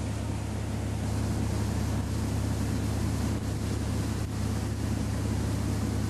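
A Mainship 34 trawler's engine running steadily underway, a low even drone, with wind rushing past the open helm and water noise over it.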